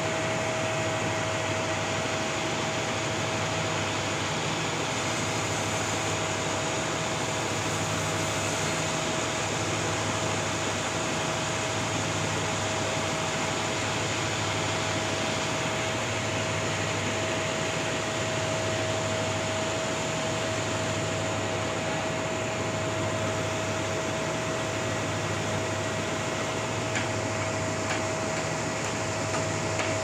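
Homemade band sawmill running steadily: a constant mechanical drone with a steady whine, under a low hum that swells and eases every second or two.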